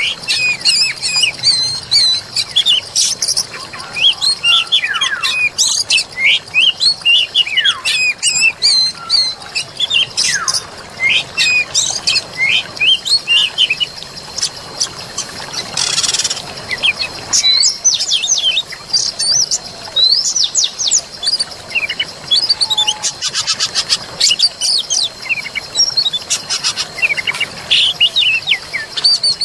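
Forest birdsong: many birds chirping and singing in quick, overlapping rising and falling notes, over a steady high-pitched tone.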